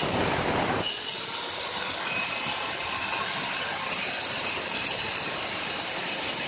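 Electric angle grinder grinding andesite stone, smoothing the hollow of a stone mortar; it stops a little under a second in. After that a steady hiss carries on.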